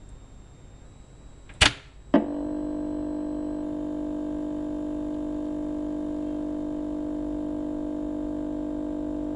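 Intro sound effects: two sharp hits close together, then a steady electronic drone of several held tones that does not change.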